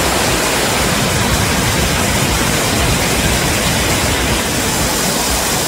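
River in flood pouring over a weir: a loud, steady rush of water.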